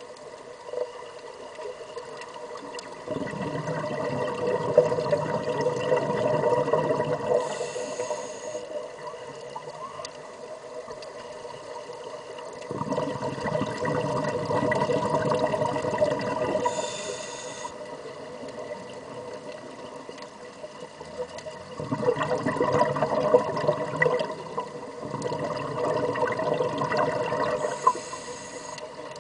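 Muffled underwater bubbling and rushing of air escaping from surface-supplied diving helmets, coming in four surges of a few seconds each, over a steady hum.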